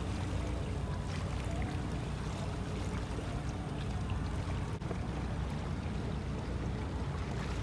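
A small boat under way: its motor runs with a steady low drone while water splashes and rushes along its hull.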